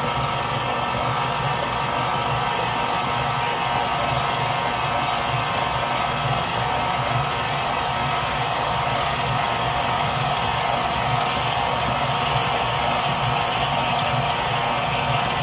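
Electric stand mixer running steadily, its flat beater churning thick pound cake batter as flour is mixed in.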